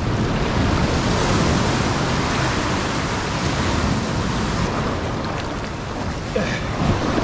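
Shallow surf washing over the sand in a steady rush of breaking foam.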